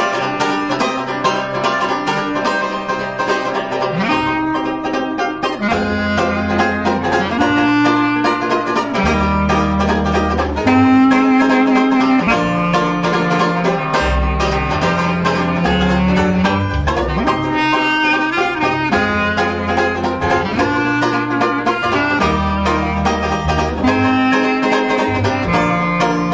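Live trad-jazz trio music with banjo strumming chords and a plucked double bass joining in about six seconds in. A clarinet plays the melody over them.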